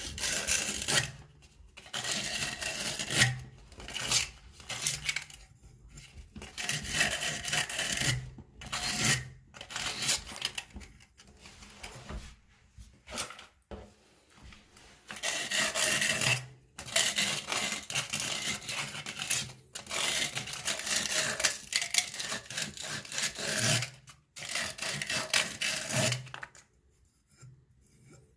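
Sandpaper rubbing back and forth on the cut end of a copper pipe, in scratchy bursts of a second or few with short pauses between them, smoothing the cut edge.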